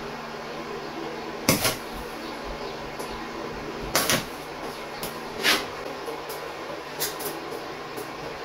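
Metalworking on thin sheet steel during stick-welding work: three sharp, loud metallic strikes or short bursts, about a second and a half in, at four seconds and at five and a half seconds, with fainter ones near the end, over a steady low hum.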